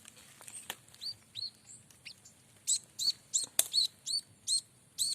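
Small bird giving short, arched chirps, a few scattered at first and then about three a second from near the middle. One sharp click about three and a half seconds in.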